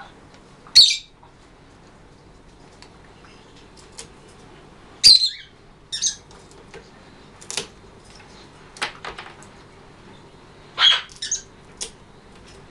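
Blue-and-yellow macaw giving short, sharp squawks and clicks at irregular intervals. The two loudest come about a second in and about five seconds in, with a cluster of quicker ones near the end.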